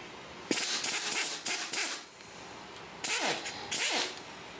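Pneumatic impact wrench run in two bursts, about half a second in and again near three seconds, each a hissing, stuttering run that winds down in pitch as it stops; it is loosening rocker-shaft bolts.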